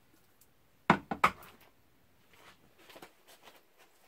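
Metal food cans set down on a wooden pantry shelf: three sharp knocks in quick succession about a second in, then faint shuffling of cans.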